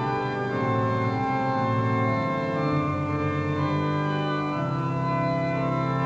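Organ playing slow, sustained chords, the harmony shifting a few times.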